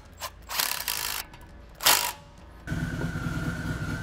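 Cordless drill with a socket driving bolts in a few short runs, the last one the loudest. About two-thirds of the way in, a steady low machine hum with a high whine begins.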